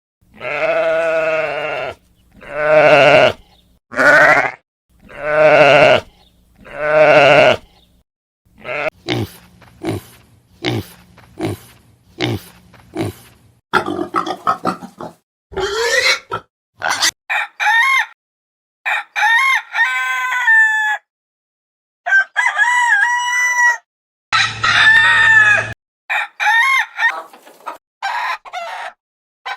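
A sequence of farm animal calls: about six long, wavering calls in the first eight seconds, then chickens clucking in many short calls, with higher clear-pitched calls later on.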